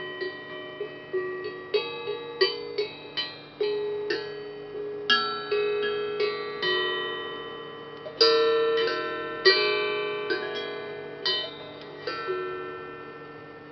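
Hamon, an iron folk instrument, played in a slow, free melody: single ringing metallic notes struck one after another, each sustaining and fading while the next one sounds.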